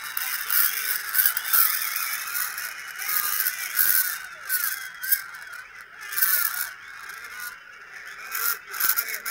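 Panicked crowd screaming and shouting, many high voices overlapping, in archival newsreel audio played back through a small device speaker.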